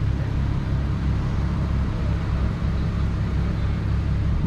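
A car engine idling with a deep, steady exhaust rumble.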